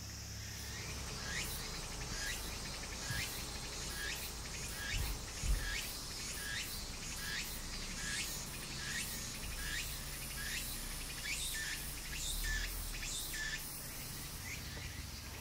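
A cicada calling in a steady rhythm, a short rising chirp about every three-quarters of a second, that stops shortly before the end. A steady low rush of stream water lies underneath, with one low thud about five and a half seconds in.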